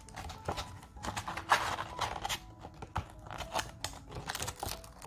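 A stiff sheet of sandpaper being handled and bent in the hands, its paper rustling and scraping in short bursts, the loudest about a second and a half in.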